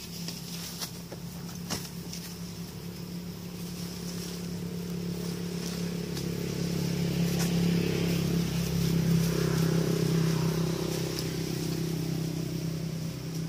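Engine hum of a passing motor vehicle, steady in pitch, swelling over several seconds to its loudest past the middle, then easing off. A couple of sharp clicks come in the first two seconds.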